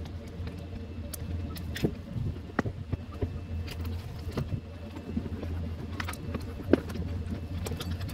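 Scattered small clicks and metallic rattles of wiring-harness connectors and loose metal parts being handled inside a stripped-out dashboard, one sharper click about two-thirds of the way in, over a steady low hum.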